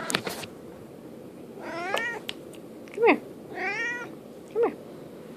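Tabby house cat meowing for its treats: two drawn-out meows that rise and fall, alternating with two short, sharp calls that drop in pitch, with a couple of clicks right at the start.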